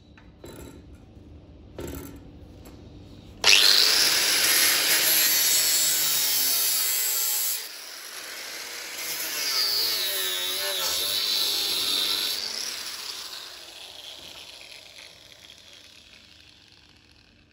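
Angle grinder with a cut-off disc cutting through steel angle iron. It starts abruptly a few seconds in and cuts loudly, eases off briefly, then cuts again with a whine that wavers in pitch under load. The disc then winds down and fades out.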